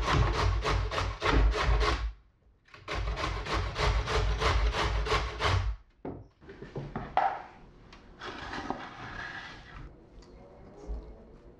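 Carrot grated on a stainless steel box grater: quick rasping strokes, about four a second, in two runs with a short break about two seconds in. They stop about halfway through, and quieter rustling and a few light clinks follow.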